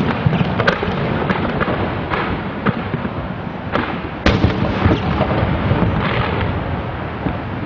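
Fireworks display: a rapid series of sharp bangs from bursting shells and comets over a continuous crackle and rumble. The loudest bang comes about four seconds in, and the firing eases off near the end.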